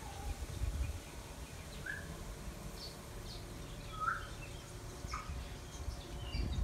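Birds chirping now and then: scattered short calls, each a fraction of a second, the clearest a rising chirp about four seconds in, over a low rumble.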